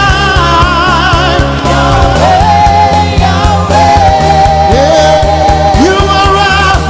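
Live church worship band playing, with sustained bass, a steady beat and a sung or played melody gliding between notes.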